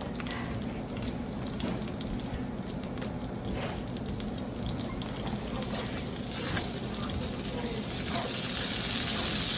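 Butter and olive oil sizzling in a frying pan with garlic in it; the sizzle grows stronger from about halfway through.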